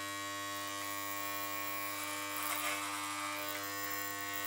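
Corded electric hair clipper running with a steady buzz as its blade trims hair at the nape of the neck.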